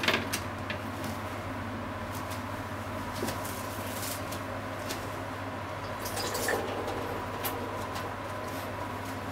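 Steady low hum with a faint high tone over it, and scattered faint ticks and clicks; one louder click right at the start.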